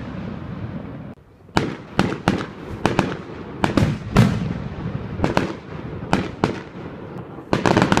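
Aerial firework shells bursting overhead: after a second of fizzing crackle, a rapid, irregular run of sharp bangs, often two or three close together, each trailing off in a rumble.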